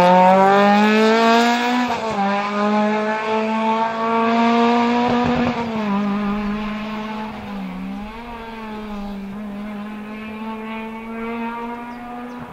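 Rally car engine at high revs, pitch climbing under acceleration, with an upshift about two seconds in, then pulling on and fading as the car drives away.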